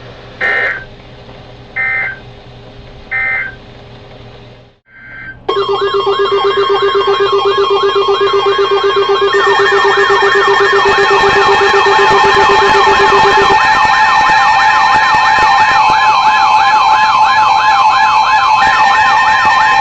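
Emergency Alert System signal: three short electronic data bursts (the SAME header), then from about five seconds in, loud alert tones, rapidly warbling siren-like tones layered over steady tones, heralding a new severe thunderstorm warning.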